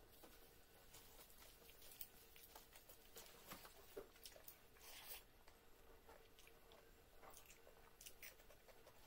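Near silence with faint scattered clicks and soft crackles of fingers picking at a fried fish and working rice on a plate, and a brief crackle about five seconds in. A faint steady hum runs underneath.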